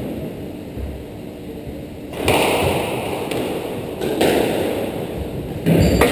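Sharp knocks of a squash ball off racket and court walls as a rally starts, a few spaced hits with the loudest near the end.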